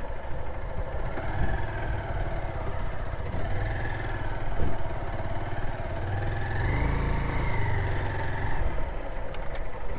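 Motorcycle engine running at low revs on a muddy, slippery dirt road; the engine note swells and rises about seven seconds in, then settles. A single sharp knock sounds about four and a half seconds in.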